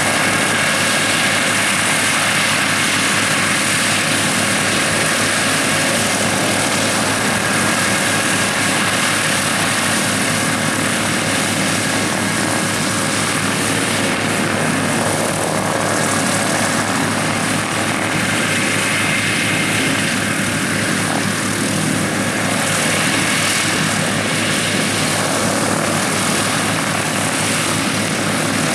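Douglas DC-3's two radial piston engines running steadily on the ground after start-up, propellers turning.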